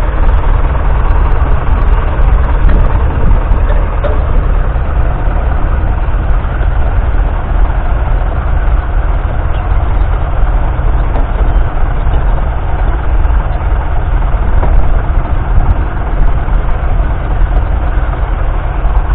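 Massey Ferguson 35's 2.3-litre four-cylinder diesel engine running steadily and loudly as the tractor pulls a two-furrow plough.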